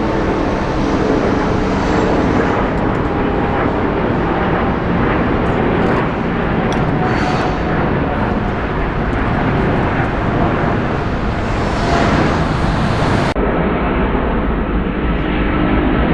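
Jet airliner engines running at takeoff power: a loud, steady roar. Near the end the upper hiss drops away abruptly, leaving a duller roar.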